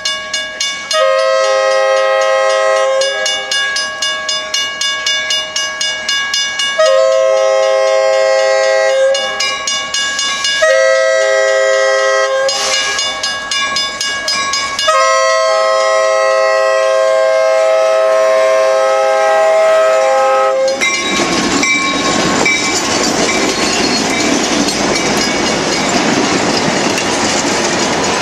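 F40PH diesel-electric locomotive's multi-note air horn sounding four blasts, long, long, short and a final long one: the grade-crossing signal as the train approaches. From about two-thirds of the way in, the horn stops and the passenger coaches roll past close by with a steady rush of wheel-on-rail noise.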